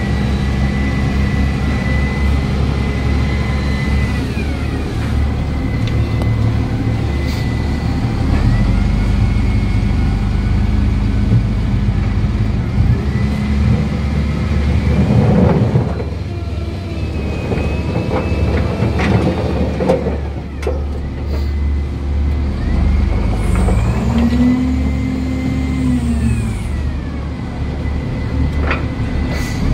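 SDLG 936 wheel loader's diesel engine running while the bucket is tilted and the lift arms are raised and lowered, with the hydraulics whining in pitches that rise and fall several times. The engine revs up and back down once near the end.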